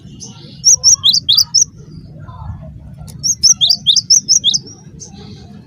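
Cinereous tit (gelatik batu) singing two loud phrases of sharp, whistled notes that alternate high and lower in pitch, each phrase about a second long. A steady low hum runs underneath.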